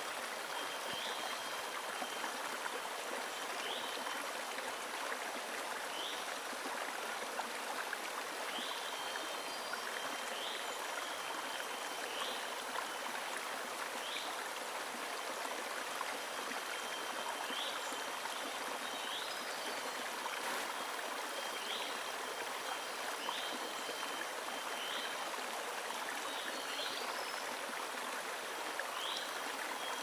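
A shallow river flowing steadily over stones and gravel, an even rush of water. Faint short high chirps recur every second or two above it.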